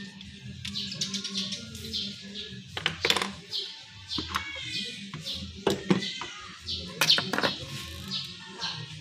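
Sharp metallic clinks and knocks of hand tools on engine parts, several near the middle of the stretch, over repeated short bird chirps and a low steady hum.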